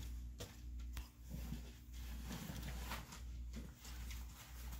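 Faint clicks and rustle of hands handling a Lego AT-ST model, plastic bricks knocking and pressing together, over a low hum.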